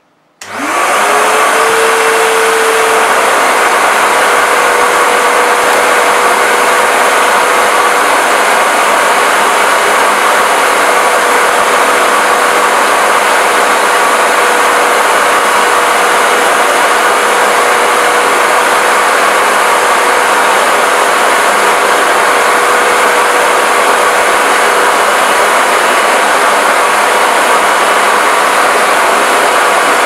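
Canister vacuum cleaner switched on about half a second in: its motor whine rises as it spins up, then it runs steadily at full speed with a loud rush of air.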